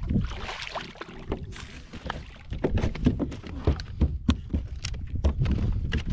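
A redfish splashing at the surface beside a plastic fishing kayak as it is landed, followed by a run of sharp knocks and thumps as the fish is brought aboard and handled on the kayak.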